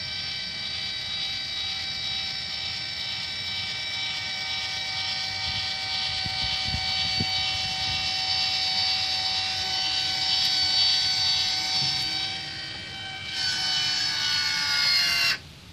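Electric linear actuator's motor and gearbox whining steadily as it drives the dump cart bed, slowly. The whine gets brighter and louder about two seconds before it cuts off suddenly near the end.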